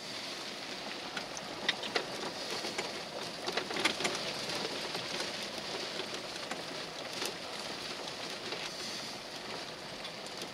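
Rain pattering on a vehicle's roof and windshield, heard from inside the cab: a steady hiss with scattered sharp drop ticks, busiest a few seconds in.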